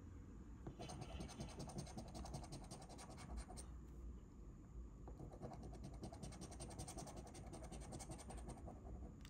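Faint, rapid scraping strokes as the latex coating is scratched off a California Lottery Single Double Triple scratch-off ticket, with a brief pause about four seconds in.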